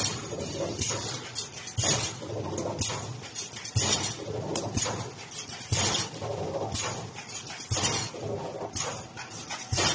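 Wire mesh welding machine for 2-5 mm wire cycling steadily, with a sharp mechanical stroke about once a second over a continuous clattering machine noise.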